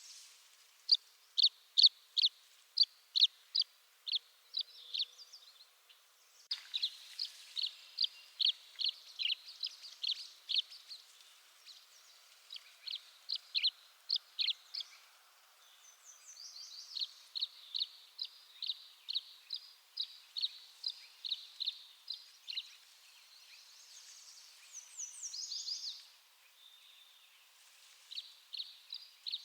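Tree swallow calling: strings of short, high chirps, about three a second, in runs of several seconds broken by brief pauses, with a longer twittering phrase near the end.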